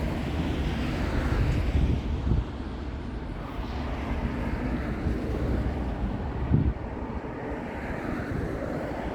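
Low, steady rumble of vehicles with wind buffeting the microphone, and a short bump about six and a half seconds in.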